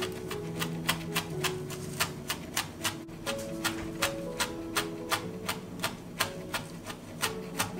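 Chef's knife chopping fresh parsley on a cutting board: quick, even knocks of the blade, about three a second. Soft background music with held notes plays underneath.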